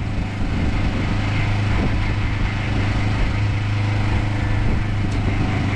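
Engine running steadily with a constant low hum under a wash of noise, heard on board a small fishing boat.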